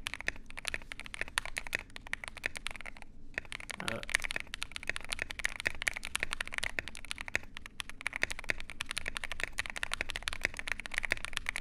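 Fast, continuous typing on a mechanical keyboard: a dense run of keystroke clacks, with a brief pause about three seconds in.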